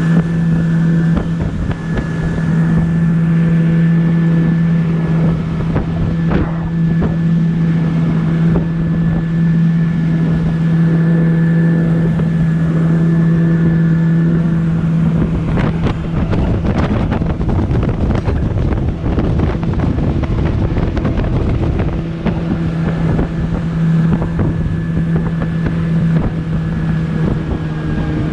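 Motorboat engine running at a steady speed, a constant hum, with wind rushing over the microphone. For several seconds in the middle the hum is lost under rougher rushing and knocking, then it comes back.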